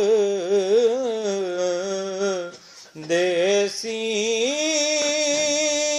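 A solo voice singing a Punjabi naat, holding long, wavering, drawn-out notes. The voice breaks off briefly about two and a half seconds in, then resumes.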